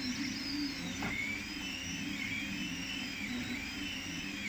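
FDM 3D printer printing, its stepper motors whining in several pitches that slide up and down and cross each other as the print head speeds up, slows and changes direction, over a steady low hum. The nozzle is tracing the clip's outer and inner walls.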